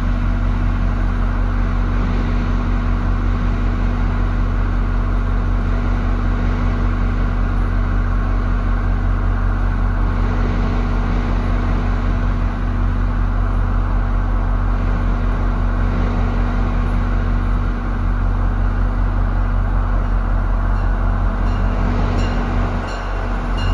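New Jersey Transit diesel train standing at the platform, its engine idling in a steady low drone. Near the end, a regular ringing about once a second begins, the bell of a second train approaching the station.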